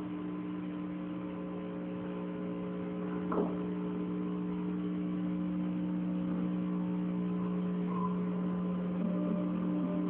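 A steady low hum made of several held tones, with a brief short sound about three and a half seconds in; the tones shift slightly near the end.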